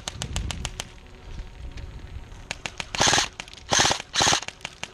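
Airsoft guns firing: quick runs of sharp clicking shots, several a second, then three louder bursts of rapid fire in quick succession about three seconds in.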